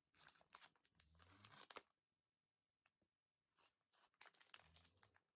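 Faint crinkling of small plastic bags of diamond-painting drills being handled, in two spells of rustling with a pause between.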